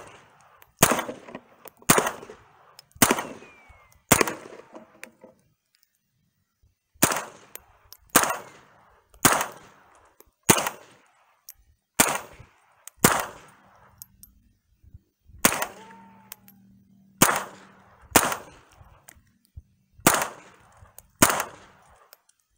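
Smith & Wesson M&P 15-22 semi-automatic .22 LR rifle firing Federal AutoMatch 40-grain rounds in a steady string, about one shot a second, roughly twenty in all, with a pause of about three seconds early on. Every round cycles and the magazine runs through without a stoppage, showing the new Volquartsen extractor working.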